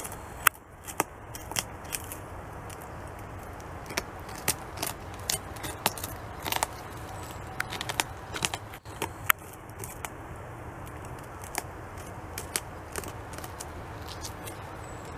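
North American beaver gnawing bark off a large tree trunk with its teeth: irregular sharp cracks and snaps of bark and wood, sometimes in quick clusters, over a steady low hum.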